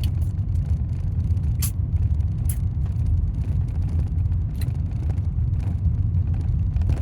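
Steady low rumble of a vehicle driving slowly, heard from inside the cabin. A few sharp, separate clicks come through it, from the rattling camera holder.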